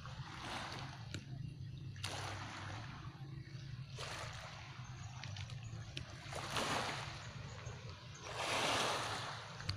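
Small sea waves washing in and draining back on a pebble shore, in several swells, the largest near the end, over a steady low hum.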